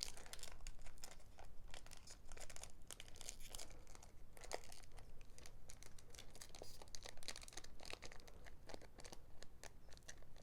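A Japanese Pokémon card booster pack wrapper being torn and crinkled by hand, in many short, irregular crackles.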